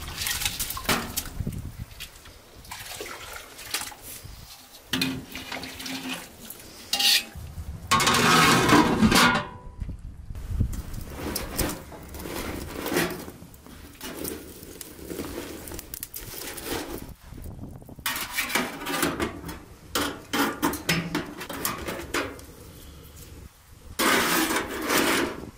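Dishes and cooking utensils being handled: a string of separate clinks, knocks and scrapes, with a longer, louder noisy stretch about eight seconds in.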